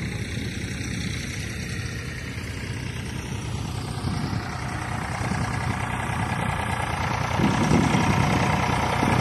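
Eicher three-cylinder tractor diesel engine running steadily under load, pulling a leveling bucket full of soil. It grows louder near the end as the tractor comes closer.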